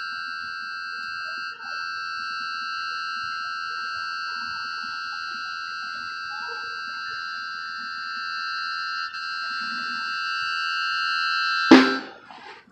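A high chord of several steady tones held by a musical instrument, slowly growing louder. Near the end a single loud hit cuts it off.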